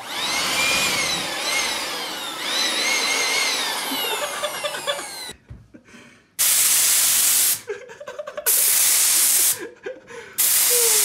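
Handheld electric blower running for about five seconds, its motor whine rising and falling several times as the trigger is worked. Then a gravity-feed spray gun on an air hose is fired in three hissing bursts of about a second each.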